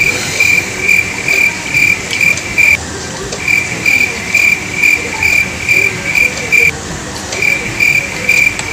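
Insect chirping in a steady rhythm, about two short high chirps a second, pausing briefly twice, over a steady background hiss.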